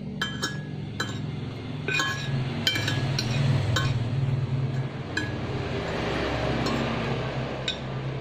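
Cutlery clinking against a dish while noodles are eaten: about nine sharp, irregular clinks with a short ring.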